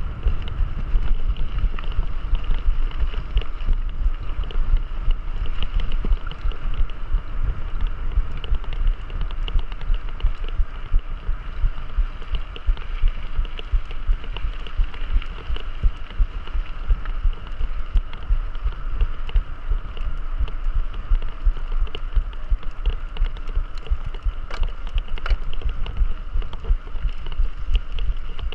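Mountain bike riding over rough ground: a constant, rapidly jolting low rumble with wind on the microphone.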